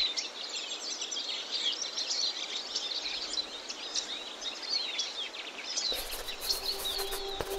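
Birds chirping and singing, many short quick calls over a steady background hiss; a low rumble comes in near the end.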